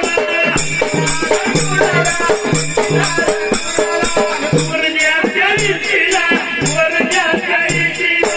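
Instrumental accompaniment to Dhangari ovi folk singing: a steady drum beat with shaken, jingling percussion and a melody instrument.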